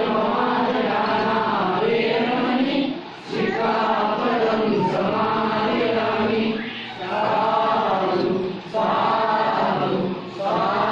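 A congregation of men's and women's voices chanting together in unison: a Buddhist devotional chant in drawn-out phrases, each a few seconds long, with short pauses for breath between them.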